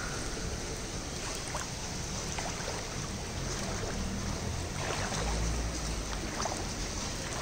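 Muddy floodwater sloshing and splashing around someone's feet as they wade through it, over a steady watery hiss. A low rumble comes in about five seconds in.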